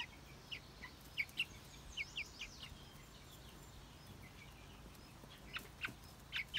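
Month-old Faverolles chicks peeping: short, high, falling chirps, a quick string of them in the first few seconds and a few more near the end.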